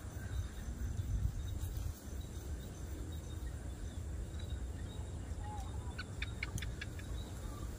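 Outdoor pond-side background noise: a steady low rumble, with a quick run of five or six short high chirps about six seconds in.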